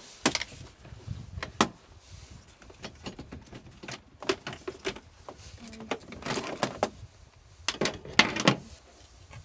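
Scattered clicks, knocks and short scraping rustles as a diesel heater and its parts are handled and set up, with two longer scraping stretches about six and eight seconds in.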